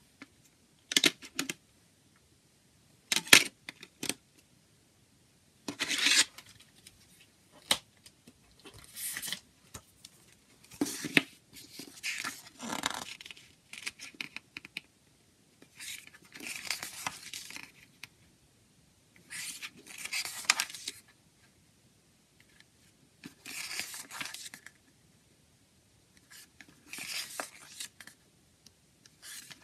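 Pages of a paper CD booklet being turned one after another, a papery swish every three seconds or so. Near the start come a few sharp plastic clicks as the booklet is worked out of the jewel case.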